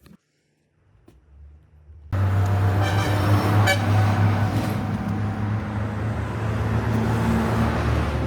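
A vehicle engine comes on abruptly about two seconds in and keeps running steadily with a deep hum, after a near-quiet start.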